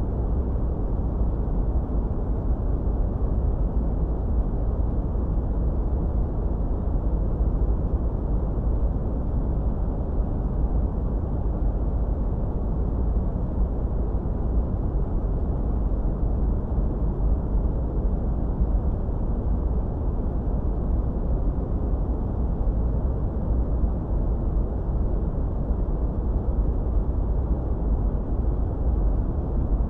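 Steady, unchanging masking noise from a relaxation noise track. It is deep and dull, like a low rumble, with almost no hiss.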